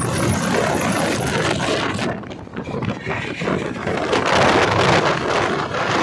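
Passenger train running at speed, heard from an open coach doorway: a steady noise of wheels on rails with wind rushing past the microphone. It dips briefly about two seconds in and swells louder around four seconds.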